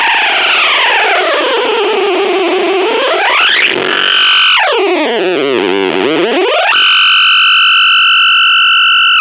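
MXR Carbon Copy analog delay pedal self-oscillating, with its regen and mix turned all the way up, through a small battery-powered amp. The feedback tone swoops down and up in pitch as the knobs are turned, then holds a steady high tone for the last two seconds or so. The owner is unsure whether this is normal or a sign that the pedal is broken.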